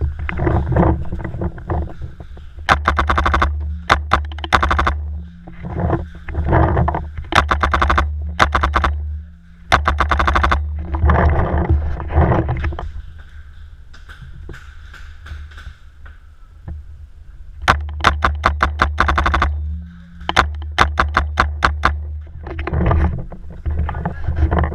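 Paintball marker firing in rapid strings of shots, several bursts at about half a dozen shots a second, with a low rumble of handling noise between bursts.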